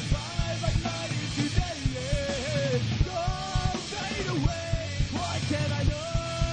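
Live rock band playing, with steady drum hits under a sung lead vocal line that rises and falls; near the end a single note is held long.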